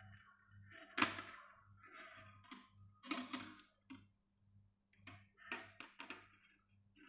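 Pliers gripping and bending metal wire: irregular clicks, knocks and short scrapes of metal on metal, with the wire tapping against the tabletop, the loudest knock about a second in.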